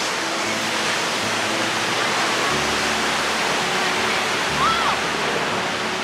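Ocean surf breaking and washing up a sandy beach, a steady dense rush, with soft background music underneath. A short high chirp sounds about two-thirds of the way through.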